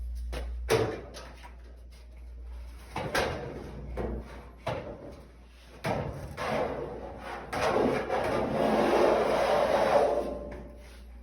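Several sharp knocks and clunks, then a scraping rattle lasting about three seconds, as of parts being handled and moved during repair work on a clothes dryer.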